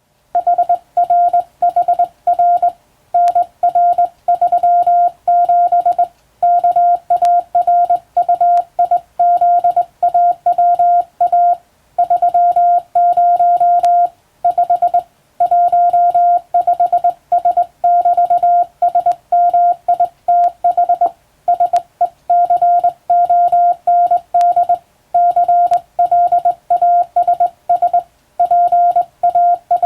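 Morse code sent on a telegraph key, heard as a single-pitch beep tone keyed on and off in quick dots and dashes. Longer gaps every few seconds mark the spaces between words of practice telegram text.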